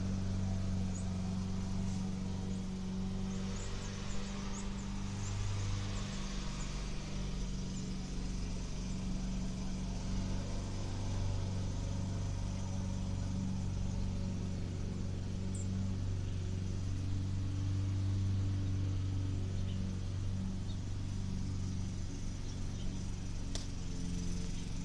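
A motor running steadily with a low hum, under a faint hiss.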